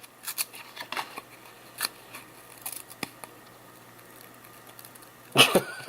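Trading cards handled and flipped through one by one: light, scattered paper clicks and rustles, with a louder burst of handling noise near the end.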